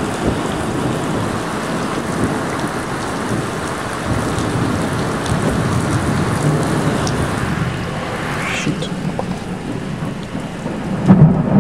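Heavy thunderstorm rain and wind, a steady loud hiss, with a loud burst of thunder breaking in near the end.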